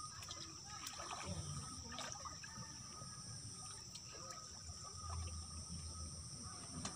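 Faint trickling and sloshing of muddy ditch water as a man wades chest-deep and gropes along the bank by hand, with small scattered ticks and splashes. A steady high thin whine runs underneath.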